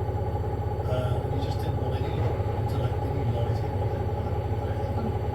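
Hoover H Wash 700 washing machine running steadily, with a constant low hum and a steady high motor whine.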